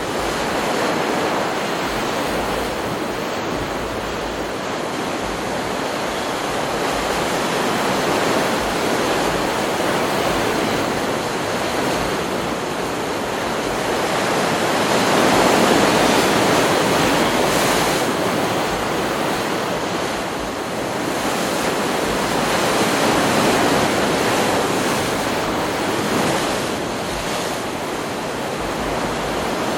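Ocean surf from a stock beach recording: a continuous wash of breaking waves that swells louder about halfway through and again a little later.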